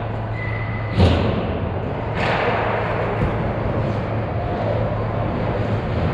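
Ice hockey play: a hard thud about a second in, then a second hit a little over a second later that trails into a brief scraping hiss, over a steady low hum.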